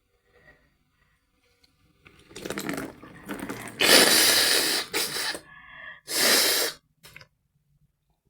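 A person forcefully blowing salt water and mucus out of a congested nose during a nasal rinse: several hard blasts of air, the longest and loudest about four seconds in.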